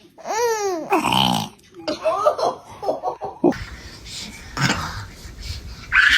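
A baby hiccuping: short, abrupt gulping sounds. There is laughter around them, and a pitched voice rises and falls near the start.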